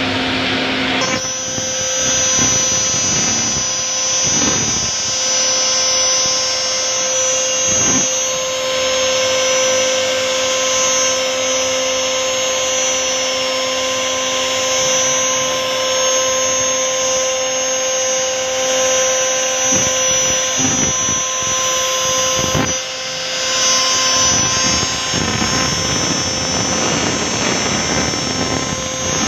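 RT1325V CNC router's spindle running at speed while its bit cuts grooves in a wooden panel: a steady machine whine over the hiss and rasp of the cutting.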